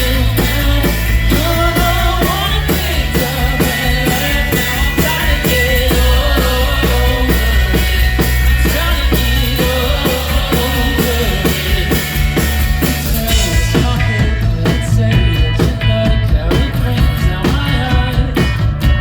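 Rock band playing live with a singer over bass and drums. About fourteen seconds in, the cymbal wash drops away and the band carries on with a sparser, punchier beat.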